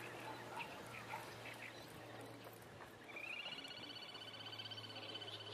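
Little grebe giving its rapid high trilling call, starting about three seconds in with a short upward slide, then held steady.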